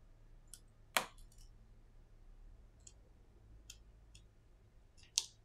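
Sharp little clicks from an iPhone 6s's display flex cable connectors being pressed into their sockets on the logic board. The clicks come singly, with a loud one about a second in, another loud one near the end, and fainter ones between.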